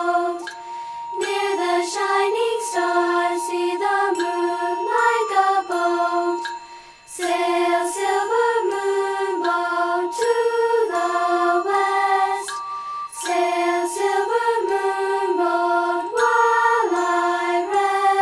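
Gentle children's song music: a simple melody in steady notes over a long held high tone, with light chiming accompaniment. There is a brief pause between phrases about seven seconds in.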